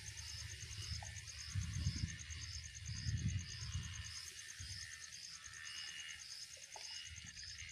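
An insect chirping high and evenly, about two chirps a second, with two brief low rumbles on the microphone a couple of seconds in.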